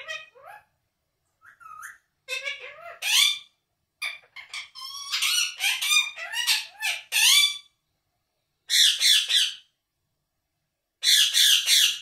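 Indian ringneck parakeet calling: a run of chirps and chattering calls that rise and fall in pitch, then two harsh, loud squawk bursts, one past the middle and one at the end.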